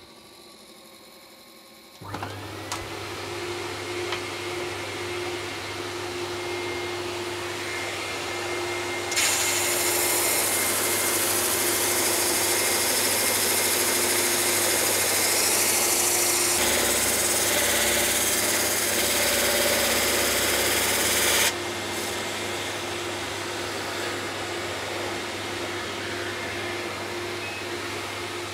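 A vacuum-type dust extractor starts about two seconds in with a rising whine and then runs steadily. From about nine seconds to about twenty-one seconds a beech board is fed under a lathe-driven 80-grit drum sander, adding a loud, even hiss of sanding over the machine sound.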